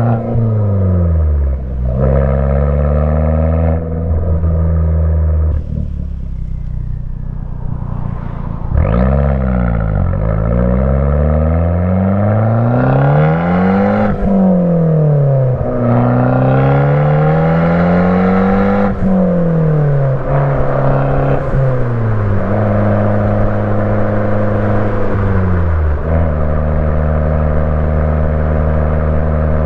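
Fiat 500 Abarth's turbocharged 1.4-litre four-cylinder running through an MPx cat-back exhaust while driving. The engine note climbs under acceleration and drops off again many times.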